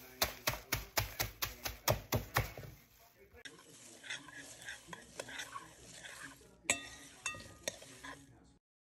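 Kitchen food-prep sounds: a quick run of about ten sharp knocks with utensils, around four a second, then lighter clatter and one ringing clink near the end.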